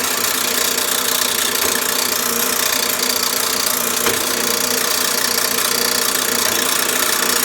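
Bandsaw running steadily with its blade cutting through a workpiece clamped in V-blocks, a continuous loud mechanical noise with a faint knock about four seconds in.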